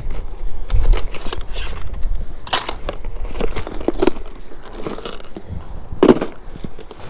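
Rummaging through a fabric backpack: cloth rustling, a plastic bag crinkling and irregular clicks of gear being handled, with one louder knock about six seconds in.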